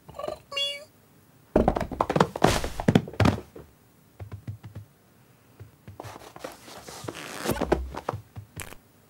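Cartoon cat sound effects: a short cat-like vocal sound, then a quick flurry of thumps and scuffles as the cat scrambles up onto the sofa. Later comes a scratchy rustling with a soft thud and a click near the end.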